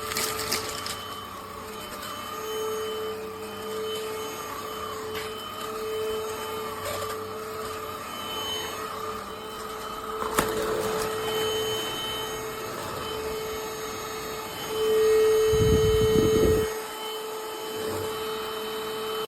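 Cordless stick vacuum cleaner running, its motor giving a steady whine. There is a sharp click about ten seconds in, and a louder stretch with a low rumble for a second or so near the end.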